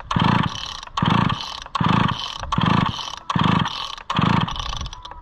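Homelite Super XL two-stroke chainsaw being pull-started: six hard pulls on the recoil starter cord in quick succession, about one every 0.8 s, each a short buzzing crank of the engine that fades. The engine turns over but never fires, as expected of a saw that has sat unused for 20 years.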